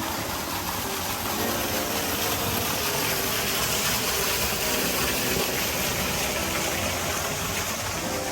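Steady rushing noise that swells a little around the middle, with faint background music underneath.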